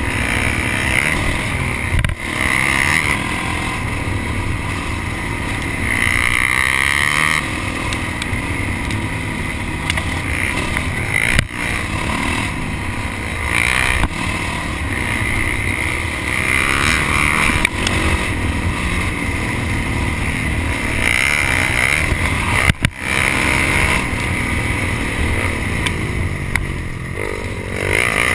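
Honda CRF250X dirt bike's single-cylinder four-stroke engine running on the trail, its pitch rising and falling with the throttle, with a few sharp knocks along the way.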